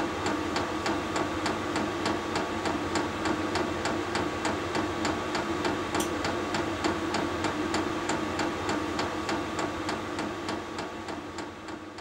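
Vevor portable diesel heater running: a steady blower and burner hum with the fuel pump ticking evenly about three to four times a second. The sound fades out near the end.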